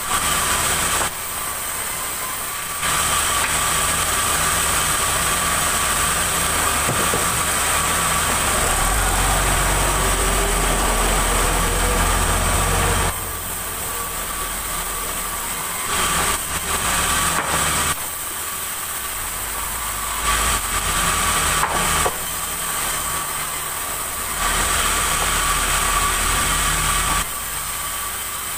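Sawmill saw running with a steady whine over a low machine hum, getting louder for a long stretch from about three seconds in and for shorter spells later, as it cuts a large log.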